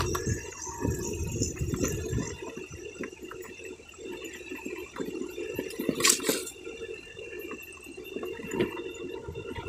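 Motorbike ridden over a bumpy dirt track: the engine running under a rough wind rumble on the microphone, with irregular knocks and rattles from the uneven ground and a sharper clatter about six seconds in.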